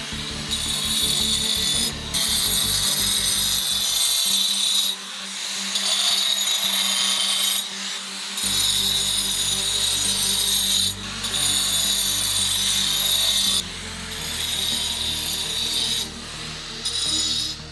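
Handheld angle grinder with a thin cutting disc cutting grooves into granite: a high, hissing grind in a run of cuts of two to three seconds each, broken by brief pauses as the disc is lifted and moved. Background music plays underneath.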